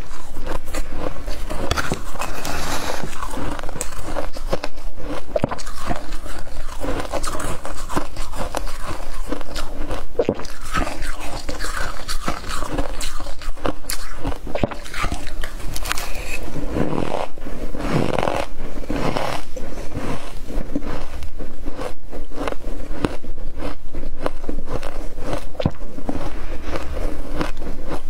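Freezer frost bitten and chewed close to the microphone: a dense, continuous run of crisp crunches and crackles as each spoonful of packed frost is crushed between the teeth.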